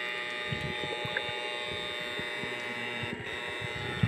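A small motor running steadily, a buzzing hum with a constant high whine.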